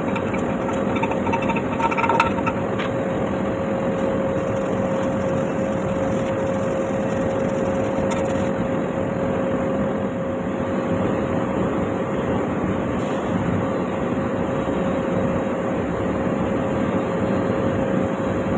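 Stick-welding arc burning with a steady crackling hiss, and a steady hum running underneath.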